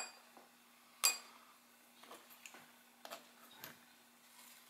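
Small tools handled on a wooden cutting board: a sharp metallic clink about a second in, then a few faint taps and scrapes as a hobby knife trims a small piece of rubber.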